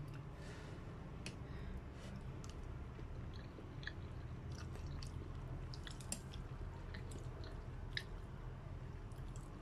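A person eating chicken noodle soup from a bowl: slurping noodles off chopsticks and chewing, with scattered small wet clicks. A sharp click of a metal spoon against the ceramic bowl about 8 seconds in.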